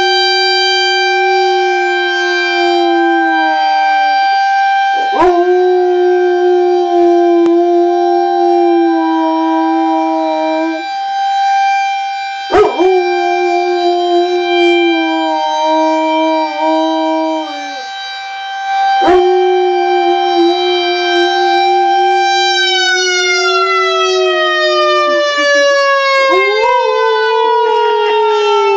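Outdoor tornado warning siren sounding a test: a steady high tone that starts winding down, falling in pitch, about three-quarters of the way through. A dog howls along in about four long drawn-out howls of several seconds each, then gives a few shorter broken cries near the end.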